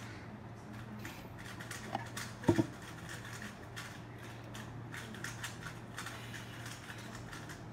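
Rapid clicking and clacking of a 3x3 speed cube being turned during a solve, over a steady low hum, with one sharp knock about two and a half seconds in.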